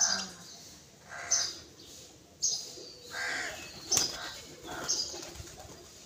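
Pigeons flapping their wings as they fly in to the feed, with crows cawing again and again, roughly once a second, and a sharp click about four seconds in.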